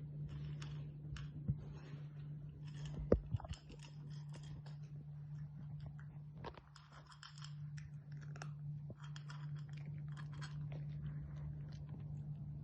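Irregular crunching and chewing in short clusters, over a steady low hum.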